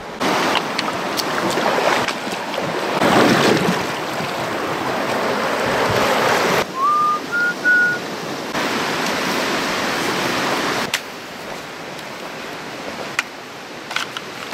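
Steady rushing noise of river water and wind on the microphone, its level shifting abruptly several times. About seven seconds in, a short three-note whistle sounds: one rising note, then two level notes.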